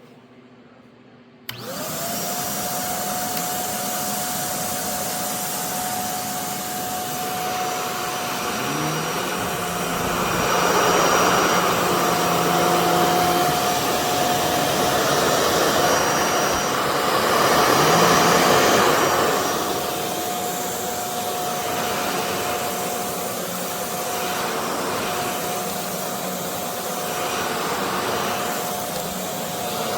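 Shark ZD201 Lift-Away upright vacuum switched on about a second and a half in, then running with a steady whine. Its sound swells louder twice as it is worked.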